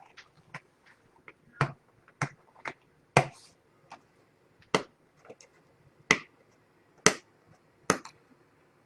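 Sharp, irregular clicks and knocks, about one a second, from hands and scissors working at the packing tape on a sealed cardboard box of trading cards.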